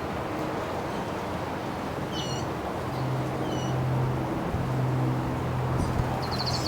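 Wind rushing over the microphone, with short bird chirps about two seconds in and again just after the middle, and a quick trill near the end. A low steady hum joins about three seconds in.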